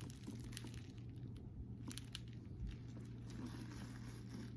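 Faint handling of a leather handbag, with a few light clicks, over a steady low electrical hum.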